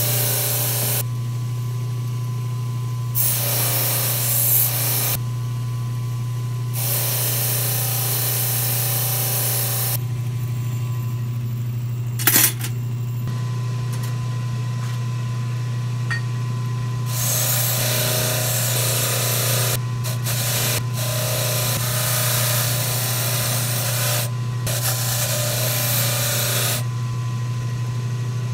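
Motor of a Grizzly knife blade sander running with a steady hum, fitted with a wire wheel against which stainless steel skewers are pressed in spells of a few seconds, each giving a harsh hissing scrape as the wire brushes the steel clean. One sharp knock about twelve seconds in.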